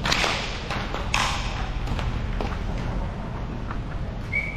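Roller hockey play on a plastic tile floor: two short clattering hits of stick and puck, one right at the start and one about a second in, then lighter clicks. A brief high squeak comes near the end, over a steady low hum.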